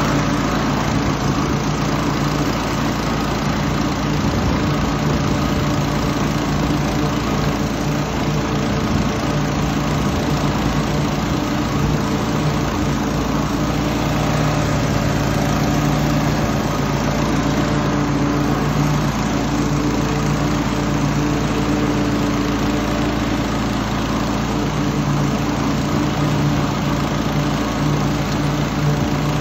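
Toro TimeMaster walk-behind mower's single-cylinder Briggs & Stratton engine running steadily at an even speed while mowing grass.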